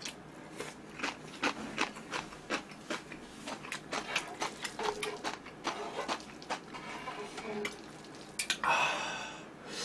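Close-up chewing and mouth smacking of stir-fried curry instant noodles, with many small wet clicks. A longer, louder slurp of noodles comes about eight and a half seconds in.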